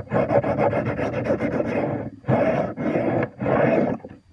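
A steel knife blade scraping across a Smith's Tri-Hone sharpening stone. It goes back and forth steadily for about two seconds, then in three separate strokes, grinding metal off a dull edge.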